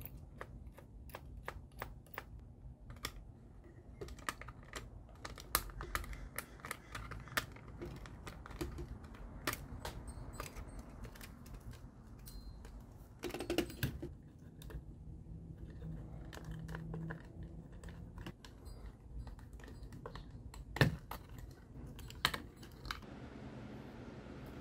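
Irregular small clicks and taps of the plastic casing of a Sony WM-FS495 Walkman cassette player as it is handled and taken apart, with one sharper knock near the end.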